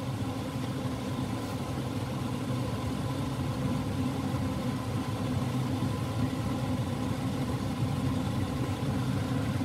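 A steady low mechanical hum with a faint constant higher tone over it, unchanging throughout.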